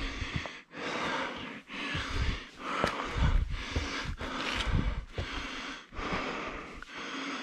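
A hiker breathing hard and fast from the exertion of a steep uphill scramble, about one heavy breath a second.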